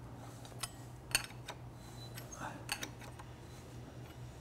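A few light, separate metal clicks and clinks as steel tools and the crank seal race puller are shifted on the crankshaft nose, over a low steady hum.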